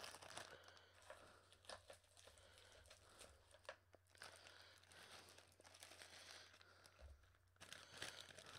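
Faint crinkling and scattered light clicks of candy packaging being handled, over a low steady hum.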